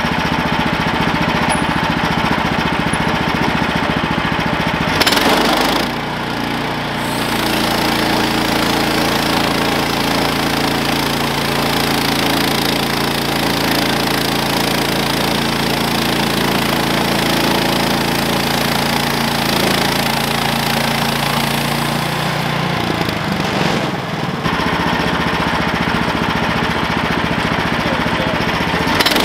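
Small gasoline engine of a portable bandsaw sawmill running hard while the band blade cuts through a log. The sound changes about five seconds in, holds steady, then changes again about 23 seconds in.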